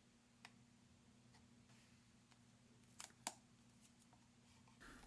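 Near silence with a few faint, sharp clicks: one about half a second in and two close together about three seconds in.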